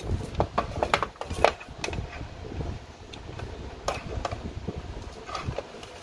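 Scattered light clicks and taps of handling as a plastic analog multimeter is moved and set down on the bench, most of them in the first two seconds and a few more later, over a low steady hum.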